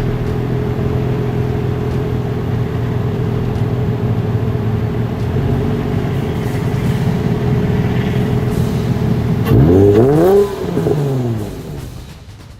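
A 2003 Nissan 350Z's 3.5-litre V6 idling steadily through a Nismo S-Tune exhaust. About nine and a half seconds in there is one quick rev that rises and falls in pitch, then the sound fades out near the end.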